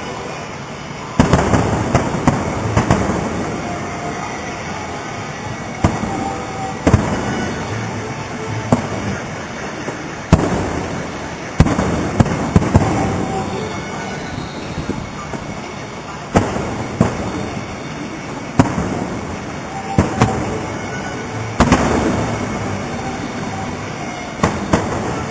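Aerial fireworks display: sharp booms every second or two, some in quick clusters, each trailed by a rolling rumble.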